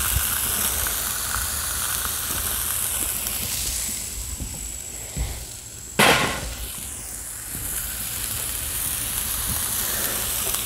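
Shaved steak and Italian sausages sizzling steadily on a Char-Griller Flat Iron flat-top griddle. A single sharp crack about six seconds in is the loudest moment, fading over about a second.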